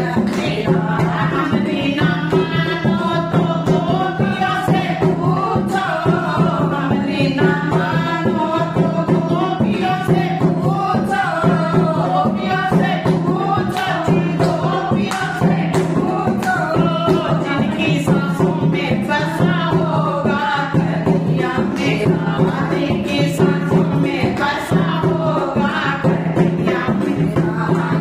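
Women singing a Hindi devotional bhajan together, with a dholak hand drum keeping the beat and hand-clapping in time.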